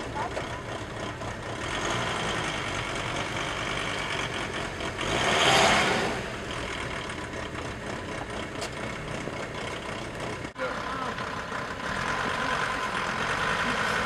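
VW T3 syncro's engine running, with a swell of louder noise lasting about a second near the middle. A brief dropout a little after ten seconds, after which a steady whine joins the engine sound.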